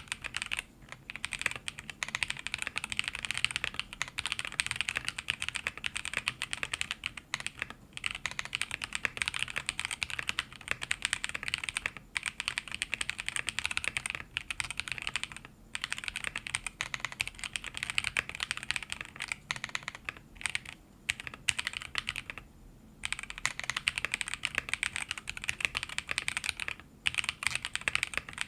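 Continuous fast typing on a plateless mechanical keyboard with stock Zaku linear switches and PBT keycaps, a clacky, snappy top-out sound, broken by a few short pauses.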